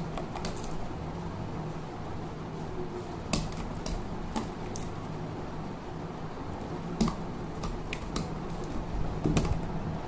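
Pliers pulling cut copper winding wire out of a ceiling fan stator's slots: irregular metallic clicks and scrapes as the running coil is removed. A steady low hum runs underneath.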